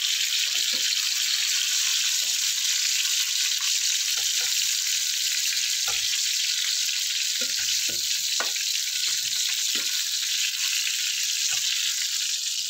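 Chicken pieces frying in hot oil in a pan: a loud, steady sizzle, with scattered light clicks and knocks as metal tongs turn and lift the pieces.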